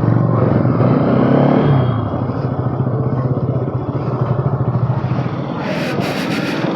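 Bajaj Pulsar NS200's single-cylinder engine running at low speed in slow traffic; its note drops a little about two seconds in. There is a short burst of hiss near the end.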